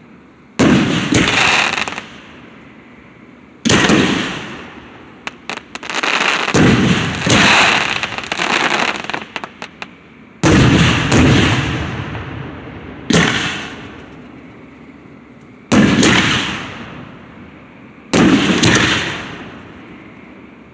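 Aerial fireworks shells bursting overhead: about seven sudden loud booms a few seconds apart, each dying away over a second or two, with bursts of quick crackling in the middle stretch.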